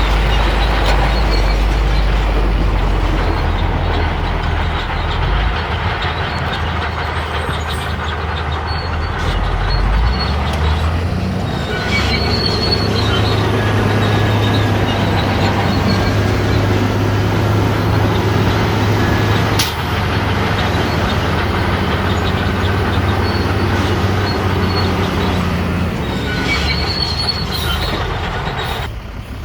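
Shantui crawler bulldozer's diesel engine running hard under load, with the squeal and clatter of its steel tracks. The engine note steps up over the first ten seconds and then holds steady.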